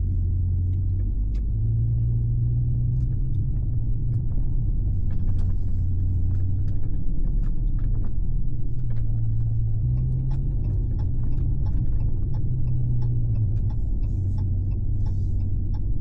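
Supercharged 6.2-litre Hemi V8 of a Ram TRX with aftermarket SLP resonators, a deep low exhaust drone while driving, its pitch stepping up and down several times as the revs change. Scattered light clicks and knocks run over it.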